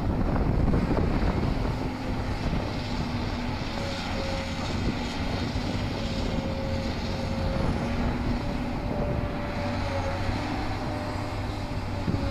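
Diesel engine of an amphibious long-reach excavator running steadily while it works its boom, a continuous low hum with a higher tone above it that wavers slightly in pitch.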